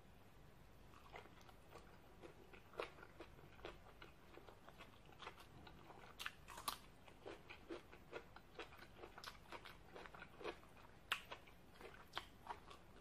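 A person chewing a mouthful of raw shrimp and crisp vegetables: many small, irregular crunches and mouth clicks, the loudest about eleven seconds in.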